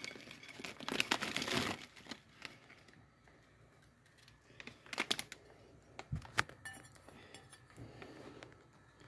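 Plastic packaging bag crinkling as it is handled and opened, loudest in the first two seconds, followed by a few scattered sharp clicks and a soft thump.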